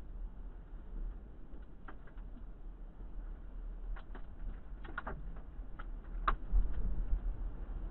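Low, pulsing wind rumble on a vehicle dashcam's microphone in a tornado, with scattered sharp ticks and knocks of debris or rain striking the vehicle, bunched from about four to six and a half seconds in.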